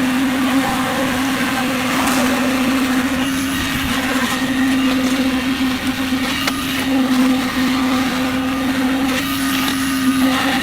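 Concrete mixer running at a steady speed, its motor giving a constant hum, with a couple of short clatters about two and six and a half seconds in.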